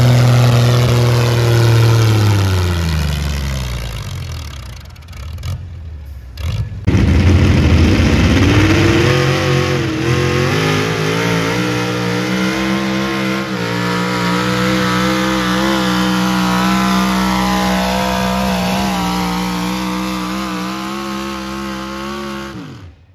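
Pulling tractor engine at full power, its pitch falling as it winds down over the first few seconds. About seven seconds in, a semi truck's diesel engine comes in loud and pulls the weight sled under heavy load, rising a little and then holding steady until it stops abruptly just before the end.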